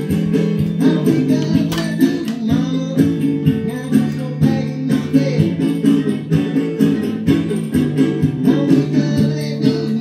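Music led by plucked and strummed acoustic guitar, with a steady rhythm.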